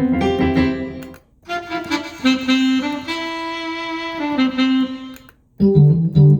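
Korg X3 synthesizer playing short phrases on its factory programs one after another, with brief breaks between them; the longest, in the middle, is a held, sax-like melody over chords.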